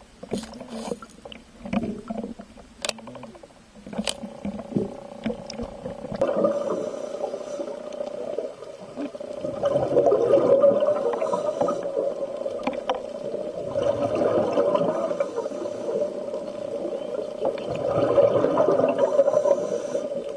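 Underwater sound picked up by a submerged camera: a few sharp clicks in the first four seconds, then a steady rough rushing noise from about six seconds in.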